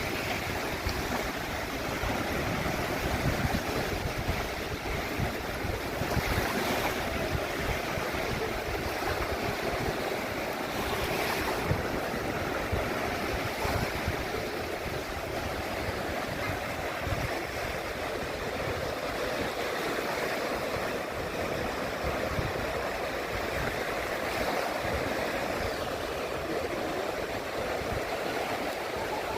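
Steady rushing of sea water, with a low rumble of wind.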